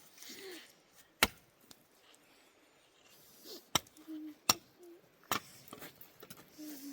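Firewood being chopped with a blade: four sharp single strikes, spaced unevenly about a second or so apart.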